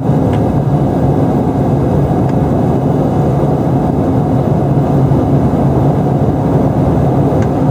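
Airliner cabin noise in flight: a steady drone of engines and airflow with a low hum.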